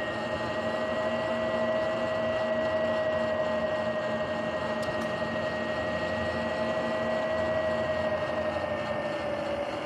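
Sur-Ron Light Bee electric dirt bike's drivetrain whining at a steady cruising speed, with a high steady tone over tyre and road noise. The pitch holds nearly constant.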